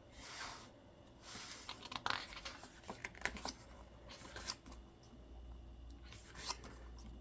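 Faint rustling and scattered soft scrapes of a K-pop album's paper pages and cards being handled and turned.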